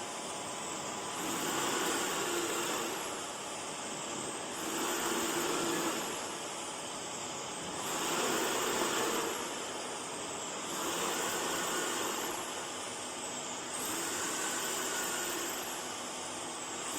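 CNC router axis drives moving the machine in repeated travels. A high whine rises quickly in pitch, holds and slowly falls about five times, each with a swell in loudness, over a steady machine hum.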